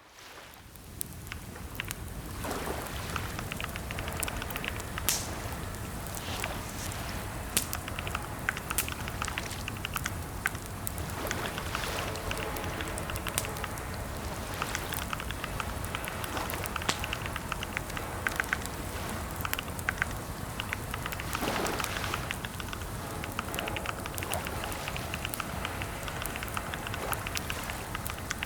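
Computer keyboard typing: a dense, irregular run of key clicks with short pauses, over a low steady hum.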